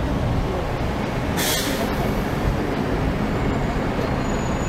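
Sightseeing bus running in city traffic with a steady rumble, and a short hiss of air from its air brakes about a second and a half in.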